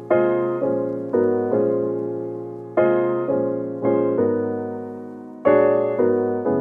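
Background piano music: slow chords struck one after another, each left to fade before the next.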